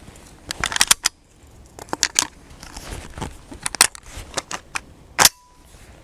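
Shotgun shells being loaded into a shotgun: a run of sharp metallic clicks and clacks, with the sharpest clack about five seconds in.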